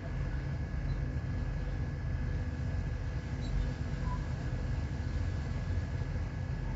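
Ship's engine running steadily, a low rumble with a constant hum.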